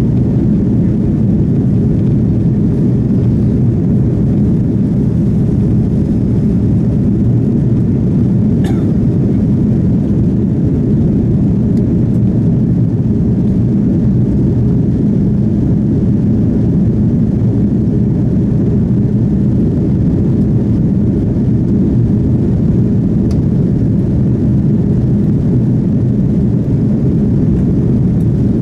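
Steady cabin roar of an Airbus A330-300 in flight, heard inside the cabin by the wing: engine and airflow noise, deep and even throughout.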